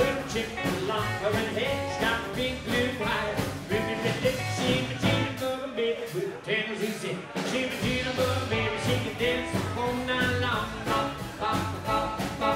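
Live rockabilly band playing with a steady driving beat: upright double bass, drum kit, electric guitar and strummed acoustic guitar. The bass and kick drum drop out for about a second near the middle, then come back in.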